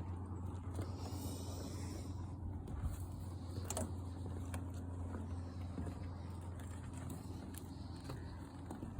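Rasping breathing that sounds like Darth Vader's, over a steady low hum.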